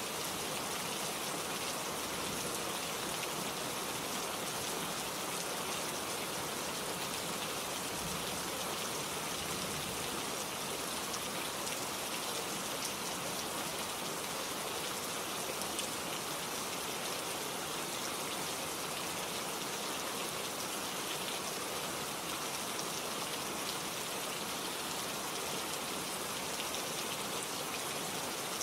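Steady rain falling, a dense, even patter of drops that holds the same level throughout.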